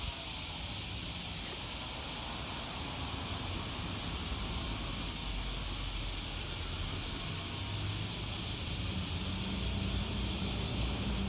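Suzuki Wagon R MH21S on the move: steady road and tyre noise, with a low drone that grows louder over the second half. The owner takes this rear droning for the typical sound of a failing rear hub bearing.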